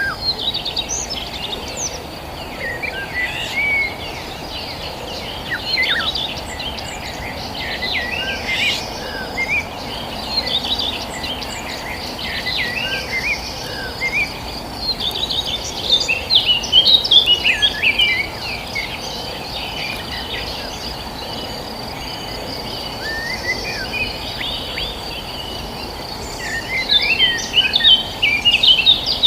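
Several small birds chirping and twittering in quick overlapping calls, busiest about halfway through and near the end. Underneath runs a steady high-pitched insect drone and constant low background noise.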